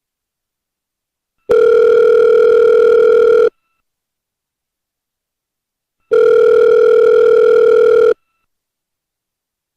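Telephone ringback tone of an outgoing call: a steady low tone about two seconds long, sounding twice with silences of about two and a half seconds between.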